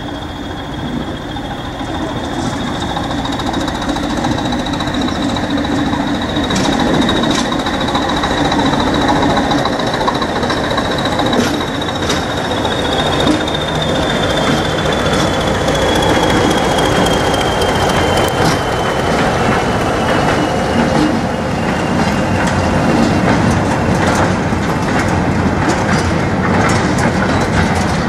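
Class 20 diesel locomotive and Class 08 shunter running past slowly with a train of mineral wagons, growing louder over the first several seconds. The locomotive gives a high whistle, typical of the Class 20's turbocharger, that slides gradually lower in the second half. Wheels click over the rail joints and the wagons rattle, more often toward the end.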